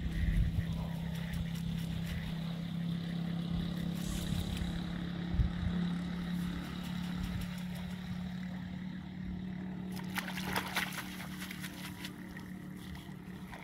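Steady low hum of an engine running in the background, with water sloshing and splashing as a cast net is pulled through shallow water; a short burst of louder splashing comes about ten seconds in.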